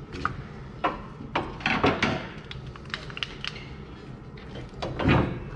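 Irregular clicks and light metal knocks of suspension parts and hand tools being handled as a coil spring and rubber spring spacer are fitted to a Jeep Wrangler's rear suspension. There is a heavier thud about five seconds in.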